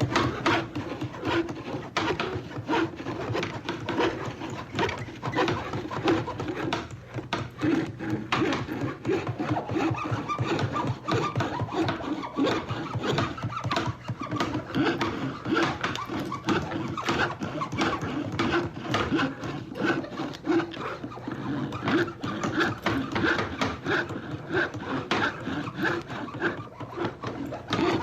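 Carpentry work on wood: hammer strikes and a hand saw, a dense run of repeated knocks and strokes with no letup.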